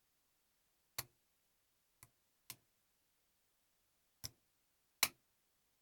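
Five sharp clicks spread over a few seconds as a single-pin pick works the pins of a pin tumbler practice lock under tension. The loudest, near the end, is a pop: a pin, the fourth, setting at the shear line.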